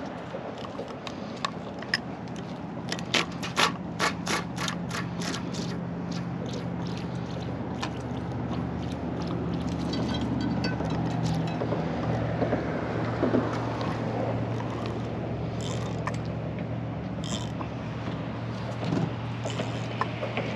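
A steady engine hum throughout, with a run of sharp mechanical clicks, about three or four a second, from about three to six seconds in, and a few scattered clicks later.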